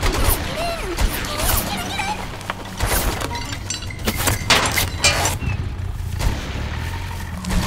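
Car-chase sound effects: a car engine running as a steady low rumble, broken by scattered sharp bangs and crashes like gunshots and impacts.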